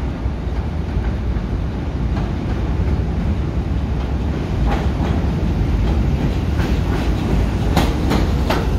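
New York City subway train pulling into an elevated station, a steady low rumble growing a little louder as it comes in. In the last few seconds its wheels clack sharply over the rail joints.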